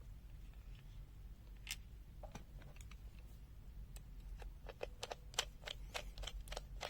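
Faint scattered clicks and taps from a multimeter being handled, with a quick run of clicks about five seconds in.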